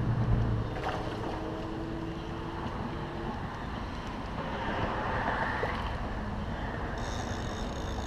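Steady rushing noise of wind on the microphone, with a brief brighter rasp about five seconds in and thin high tones near the end.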